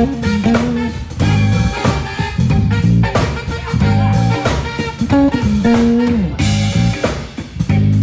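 A band playing a groove through the stage sound system: electric guitar over a bass line and drum kit.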